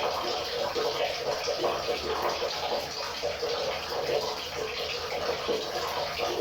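River water flowing steadily over rocks, a continuous babbling rush with a constant fine splashing texture.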